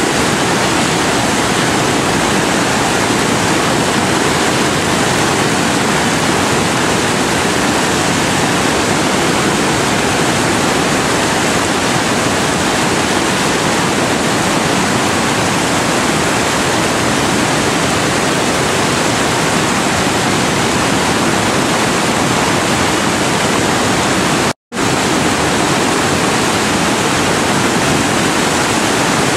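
Loud, steady rush of large whitewater river rapids, broken once by a split-second dropout to silence near the end.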